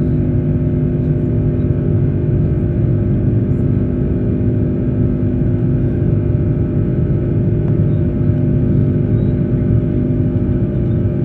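Cabin noise of an Airbus A330-200 airliner: the jet engines and airflow give a loud, steady drone with a few constant low hums running through it.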